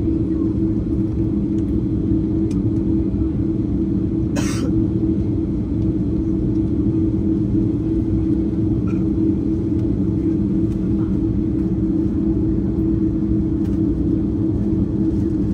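Steady jet airliner cabin rumble of a Qantas Airbus A330, with a constant low drone from the engines. A brief, sharp noise comes about four seconds in.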